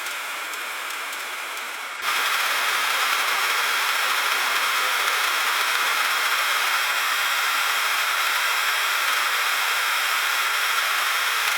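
Freezing rain falling on a car, a dense steady hiss of fine icy drops on the body. About two seconds in it abruptly becomes louder and fuller, then holds steady.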